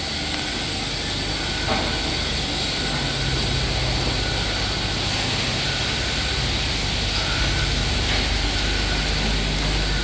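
Dairy milking machinery running steadily: a constant low hum under a hiss, with a faint knock about two seconds in.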